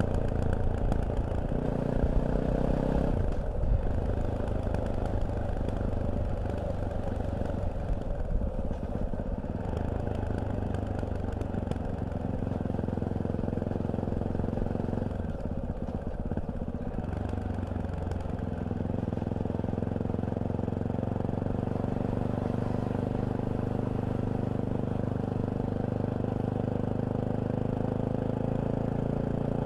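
Fantic Caballero 500 motorcycle's single-cylinder engine running. Its note shifts several times in the first half, then holds steady for the last ten seconds or so.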